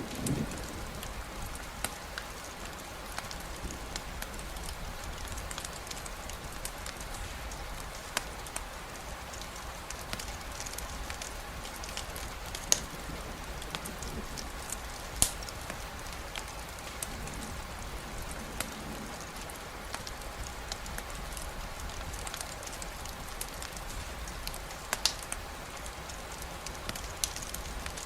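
Steady rain falling as an even hiss, with scattered sharp ticks and pops on top, a couple of louder ones about halfway through.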